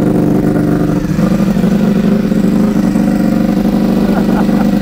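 Ducati Panigale V4 R superbike in CIV race trim, its V4 engine idling loudly and steadily after being started.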